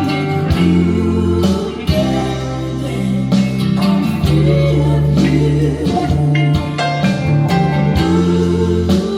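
A song with singing and guitar played back through Linn 360 loudspeakers, picked up in the room by camera microphones.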